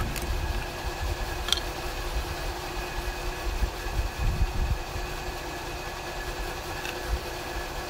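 Steady low mechanical rumble and hum in the background, with one light click about a second and a half in and a brief swell in the rumble around the middle.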